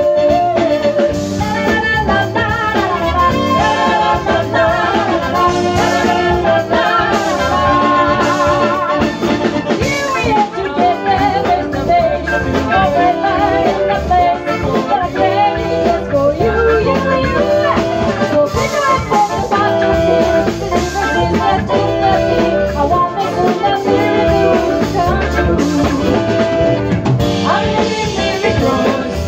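Live band with a female lead singer, saxophones, trumpet, electric bass and keyboards playing an up-tempo song, the singing and horn lines carrying over a steady bass and beat.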